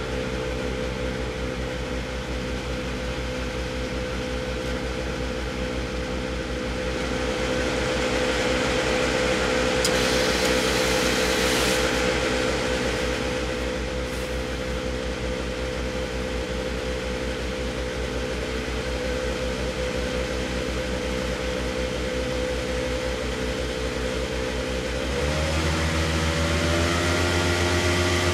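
JCB tractor engine running steadily at a slurry tanker that is discharging through a hose. A rushing hiss swells in the middle, and near the end the engine speed rises in a couple of steps.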